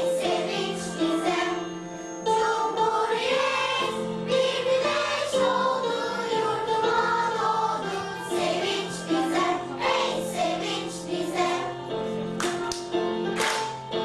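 School choir singing a song, with steady low accompanying notes held under the voices.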